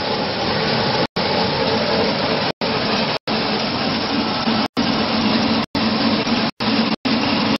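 Grain peeling and milling machine running steadily while processing corn: a loud, dense hum with a lower drone taking over in the second half. The sound cuts out completely for a split second several times.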